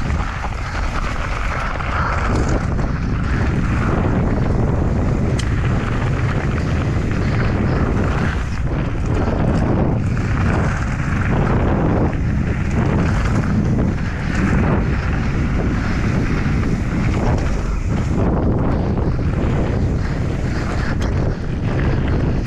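Mountain bike riding fast down a gravel and dirt trail: wind rushing over the helmet-mounted microphone over the sound of the tyres rolling on gravel and the bike rattling.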